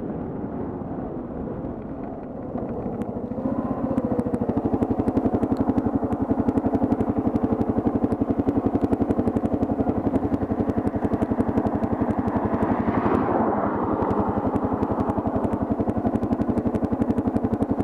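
Kawasaki KLR650's single-cylinder four-stroke engine running slowly with a fast, even thump. The thump comes up loud about three seconds in, after a quieter stretch of riding noise.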